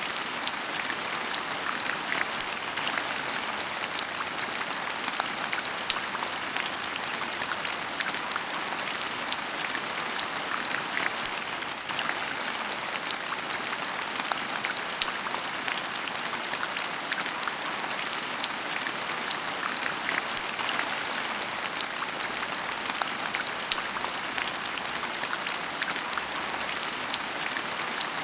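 Heavy rain falling steadily, with a dense patter of sharp drop ticks close by.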